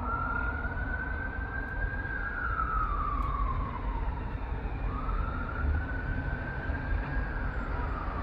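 Emergency vehicle siren sounding a slow wail: the pitch jumps up, holds, then slides slowly down, twice, over the steady low rumble of road traffic.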